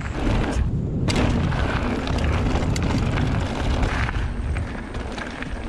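Wind buffeting the microphone over the rumble of mountain bike tyres rolling fast on a dirt trail, with scattered clicks and rattles from the bike over bumps.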